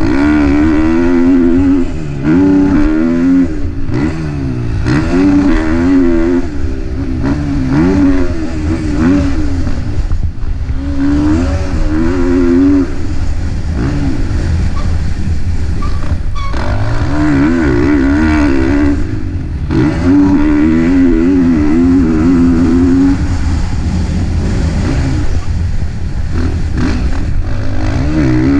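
KTM 450 four-stroke motocross bike ridden hard, its engine revving up and down continuously as the throttle is opened and shut, with several brief drops where the throttle is chopped.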